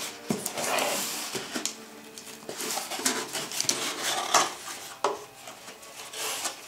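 A small cardboard box being handled and opened: cardboard scraping and rustling as the lid flap is pulled back, with small hard items inside clinking and rattling in a run of irregular clicks.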